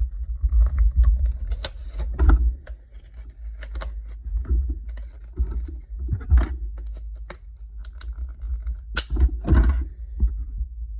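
Hands handling a soft-plastic frog fishing lure and its plastic packaging: scattered clicks, taps and rustles with a few dull thumps, the loudest about two seconds in, around six seconds in and twice near nine seconds.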